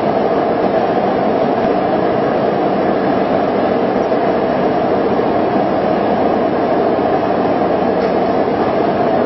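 Concrete pole production-line machinery running steadily, a loud, even noise with no pauses or changes.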